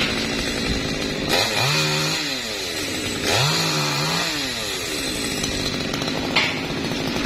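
Chainsaw running while cutting small branches off a Java plum tree, revved up to full speed twice for a second or two each time, then easing back to a lower speed.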